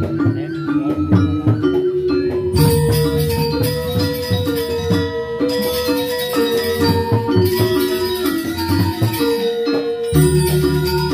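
Balinese gamelan music: struck metallophones ring out held notes in a repeating melodic pattern over lower gong and drum tones. A bright, shimmering metallic layer enters about two and a half seconds in and drops out briefly twice.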